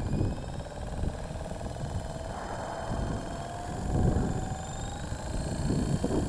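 Walkera V450D03 electric RC helicopter hovering in strong wind: a thin whine from its motor and rotor that slowly rises in pitch, under gusty wind buffeting on the microphone.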